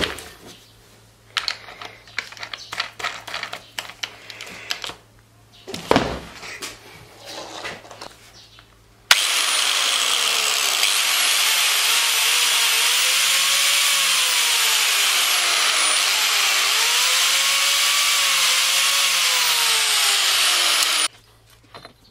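Small metal parts clicking and knocking as they are handled and fitted, then about nine seconds in an angle grinder starts suddenly and runs loud and steady for about twelve seconds, its whine wavering up and down in pitch, before cutting off abruptly.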